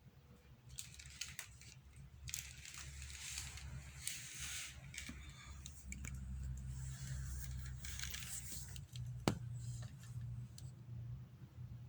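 Two cats wrestling: faint scuffling and rustling of paws and fur, with one sharp tap about nine seconds in.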